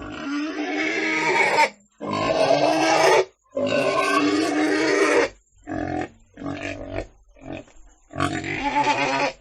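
Pig vocalising: three long, loud calls of over a second each, then a run of shorter calls with brief pauses between them.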